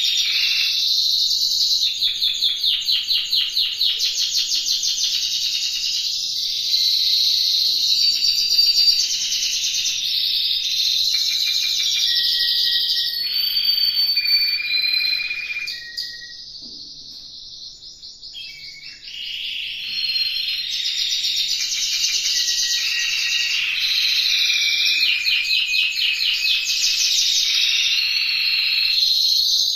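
Spanish Timbrado canaries singing: fast rolling trills alternating with held whistled notes, with a short lull about halfway through.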